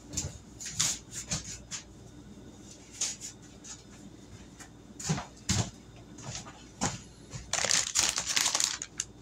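Scattered small clicks and knocks of kitchen handling, with two firmer knocks about halfway. Near the end a plastic zip-top bag crinkles as it is lifted and its open top is pulled apart.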